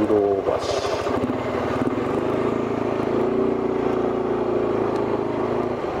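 Suzuki Skywave 400 scooter's single-cylinder engine running at low speed during a slow turn. Its pitch shifts in the first second, holds steady through the middle and drops off just before the end.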